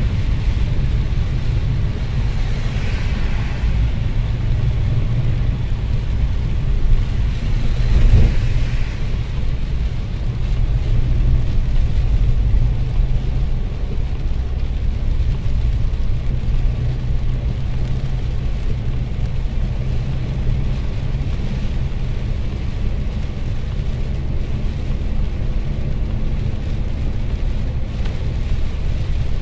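Steady low rumble of a car driving on a rain-soaked highway, heard from inside the cabin, with the hiss of tyres on the wet road. A brief louder swell comes about eight seconds in.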